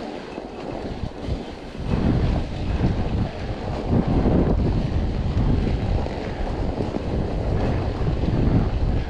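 Wind buffeting the microphone of a camera riding along on a mountain bike, a low, uneven rush of noise that grows louder about two seconds in.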